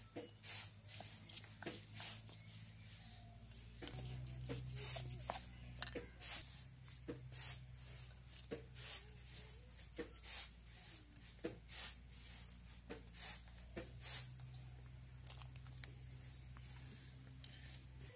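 Stone grinder on a flat grinding stone (sil-batta) scraping and knocking as lentils are crushed into a coarse paste, in short irregular strokes about once a second.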